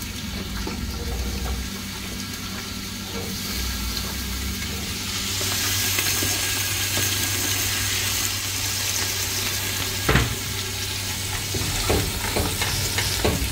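Pasilla chiles frying in butter and oil in a large pot, a steady sizzle that grows louder about five seconds in. A single knock comes about ten seconds in.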